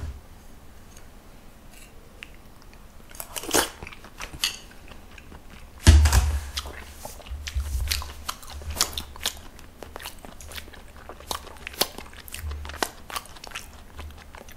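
A man chewing and crunching food close to the microphone, with scattered short clicks and crunches and one loud thump about six seconds in.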